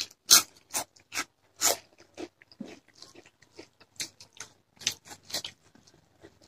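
Close-miked eating sounds: chewing and lip smacking as rice and curry are eaten by hand, heard as irregular sharp wet clicks and crunches, the loudest few in the first two seconds.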